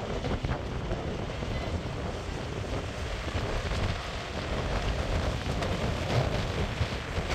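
Wind buffeting the microphone: a steady, low rushing rumble that rises and falls without a break.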